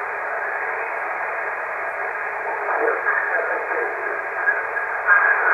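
HF transceiver receiving on the 20 m amateur band as the dial is tuned down: a steady hiss of band noise, with a distant station's garbled single-sideband voice coming up through the static about two and a half seconds in.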